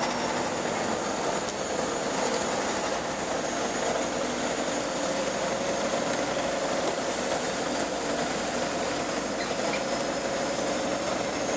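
JCB JS210 excavator's diesel engine running steadily, with a constant hum and a faint high whine above it.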